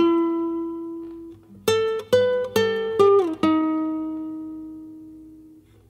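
Solo plucked guitar, unaccompanied. A note rings and fades, then a quick run of four picked notes ends in a slide down in pitch, and a last note is left ringing until it dies away.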